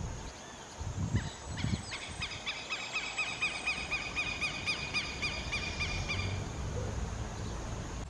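Tropical kingbird (suiriri) giving its rapid twittering trill, a long run of quick high arched notes starting about one and a half seconds in and lasting about five seconds. A couple of low thumps come just before it.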